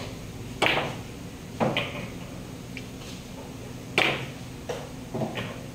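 A series of short, sharp clicks and knocks, about eight in all, the loudest about half a second in and at four seconds, over a steady low hum.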